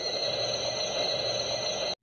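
Steady background hiss with a faint, constant high-pitched whine, cutting off suddenly near the end.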